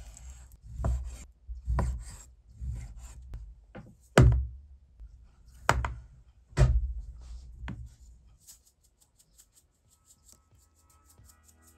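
A series of heavy knocks, each with a scraping hiss, about one a second, that stop about eight seconds in. Then music with a fast ticking beat fades in.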